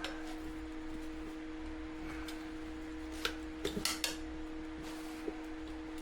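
Metal tire irons clinking against a dirt bike's wheel rim as the tire is levered off: a few light clanks about three to four seconds in and one more near the end, over a steady hum.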